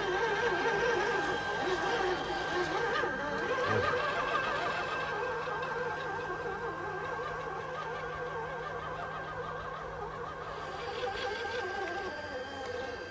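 Electric motors and gearboxes of RC scale crawler trucks (an RC4WD Gelande II D110 and a Vaterra Ascender) whining as they crawl, the pitch wavering up and down with the throttle, over a steady high tone.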